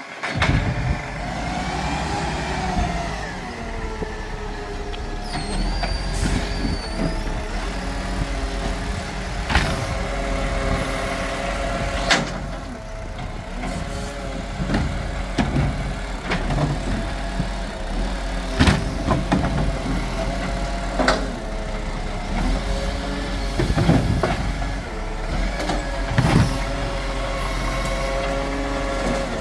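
Iveco side-loader garbage truck's diesel engine running and changing pitch as it pulls up and its hydraulic arm lifts and empties wheelie bins. Several sharp knocks come at irregular intervals from the plastic bins banging against the arm and hopper.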